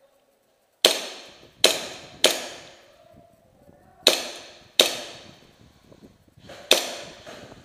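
Six shots from a KJW M1911 gas blowback airsoft pistol, each a sharp crack that echoes briefly in the room: three within about a second and a half, two more a couple of seconds later, and a last one near the end.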